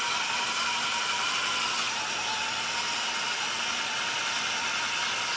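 Electric RC truck's motor and gears whining steadily at high revs, its tires spinning in the mud while the truck is held in place by hand.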